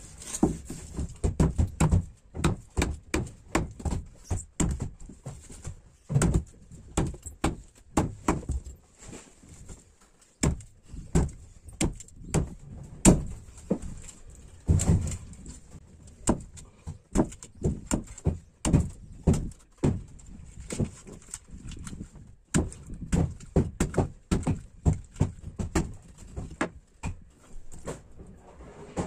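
Many irregular knocks and thumps on a small fishing boat, coming in quick clusters with short pauses between them.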